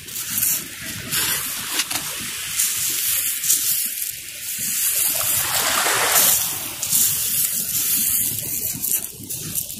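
Small waves washing onto a dark gravel shore, a steady wash that swells to its loudest about six seconds in.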